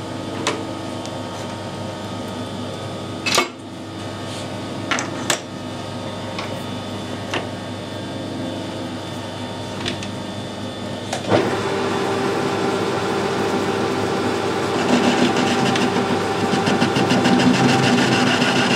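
Metal lathe tooling being changed, with sharp metal clicks and knocks from the tool post, then about halfway through the lathe starts and runs with a steady hum. Near the end a cutting tool turns down the steel CV joint shaft, adding a rougher, busier cutting noise.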